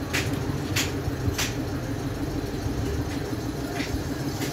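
A steady engine drone, like a motor running at idle, with three short sharp noises in the first second and a half and a fainter one near the end.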